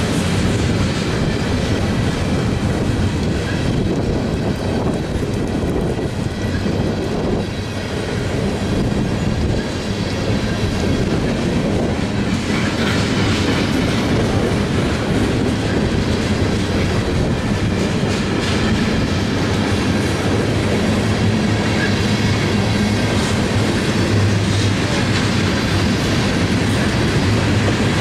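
Long freight train rolling past at close range, its cars of loaded intermodal well cars and boxcars running on steel wheels that click rapidly over the rail joints above a steady low rumble.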